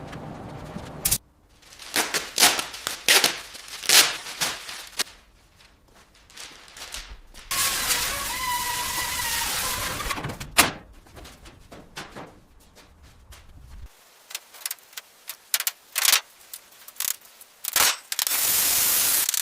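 Workshop sounds from work on a car: a run of sharp knocks and clicks, a spell of hissing with a steady whine about a third of the way in, and a loud burst of hiss near the end.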